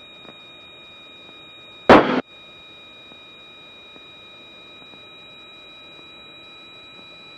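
Cockpit intercom line hissing steadily with a few thin, constant electrical whines. About two seconds in there is one short, loud burst of static, like a radio or intercom key click.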